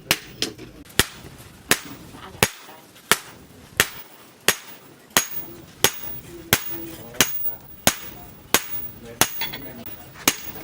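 Blacksmith's hammer forging a steel bar on an anvil: single sharp metallic blows at a steady pace of about three every two seconds, each with a brief ring.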